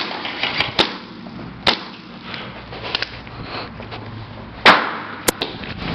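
Airsoft guns firing single shots: about six sharp cracks at irregular intervals, the loudest about two-thirds of the way in, over a steady background hiss.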